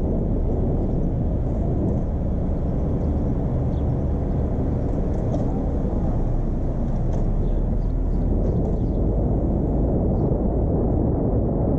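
Steady low rumble of a car driving along city streets: tyre, engine and wind noise, with a few faint light ticks above it.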